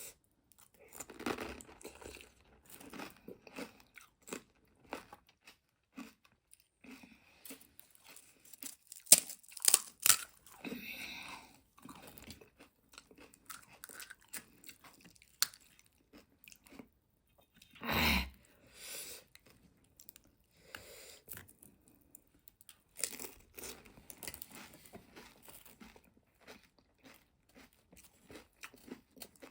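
A person eating pani puri close to the microphone: crisp hollow puri shells crunching and being chewed, in irregular bites, with a louder burst about two-thirds of the way through.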